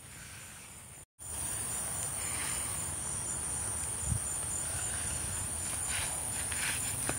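Crickets trilling in a steady high-pitched chorus, with one pulsing chirp beneath it. The sound cuts out briefly about a second in and comes back louder.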